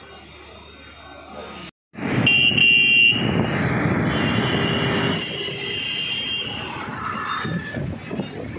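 Faint low hum, a moment of dead silence, then loud road traffic noise with vehicle horns sounding several times, each held for a second or more.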